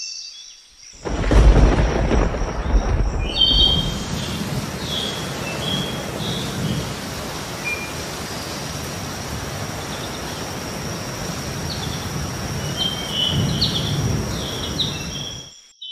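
A thunder rumble about a second in, then steady rain falling, with birds chirping over it.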